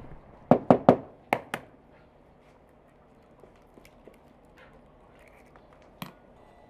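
A hen's egg rapped against a mixing bowl to crack its shell: five sharp taps in quick succession, then a single lighter click near the end.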